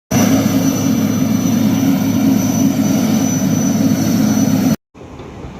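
Loud steady low rumbling noise that cuts off suddenly after about four and a half seconds, followed by a much quieter steady noise.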